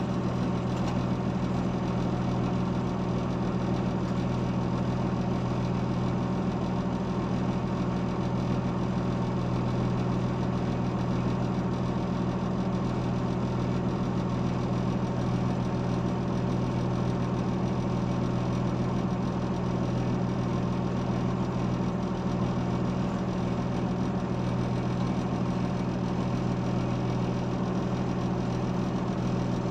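An engine idling steadily, a low even drone that holds the same speed throughout.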